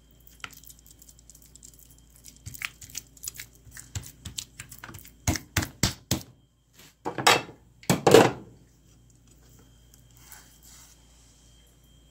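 Hands patting and pressing a moist minced-meat topping onto flattened dough on a board: a run of short taps and pats, quickening and growing louder towards the middle, then two longer, louder rustling handling noises about seven and eight seconds in before it falls quiet.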